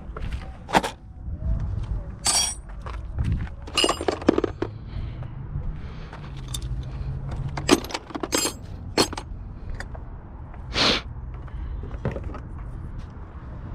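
Scattered clinks and knocks of metal tools and car parts being handled, some with a short metallic ring, over a low steady hum.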